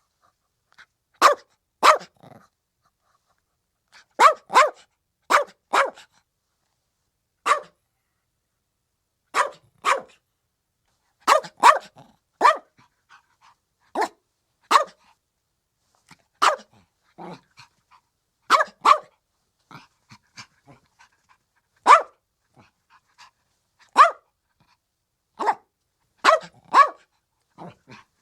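A 75-day-old chihuahua puppy barking: short, sharp yaps, often in quick pairs, coming every second or two with silent gaps between them.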